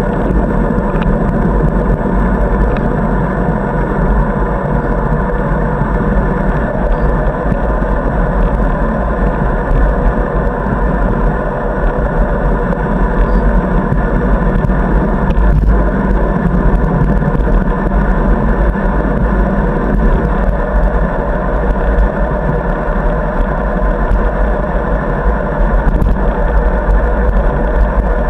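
Steady rushing noise of a bicycle ride: wind buffeting a bike-mounted camera's microphone, with tyre and road noise underneath, muffled in the upper range.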